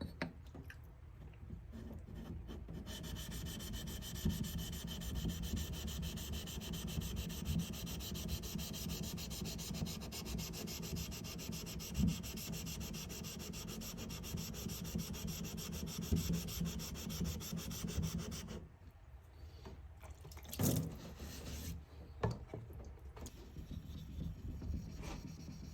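Wood being sanded, a steady continuous scratchy rubbing that stops about eighteen seconds in, followed by a single knock and lighter handling noises.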